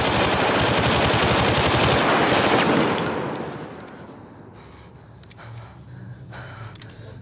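Two automatic rifles firing long, rapid, continuous bursts for about three seconds, then stopping, with a brief high ringing as the fire dies away. Faint scattered knocks follow.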